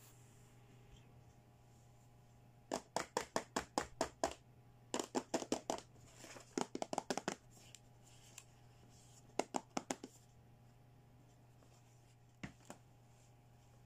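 Fingertips and nails tapping on the hard plastic of a toy beauty-set package, in four quick runs of several taps a second, with two more taps near the end.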